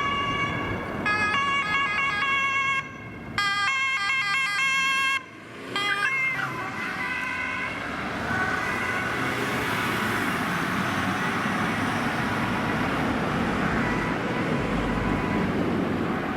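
Police two-tone siren on an unmarked Škoda Superb, stepping between two pitches and switching quickly between them around four seconds in. After about six seconds the siren drops back and steady road traffic noise takes over.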